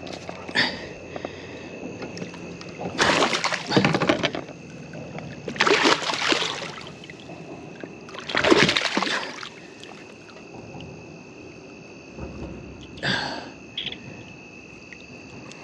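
A hooked bass splashing at the surface beside a kayak: three loud splashes a couple of seconds apart, then a smaller one near the end. Steady insect chirring runs underneath.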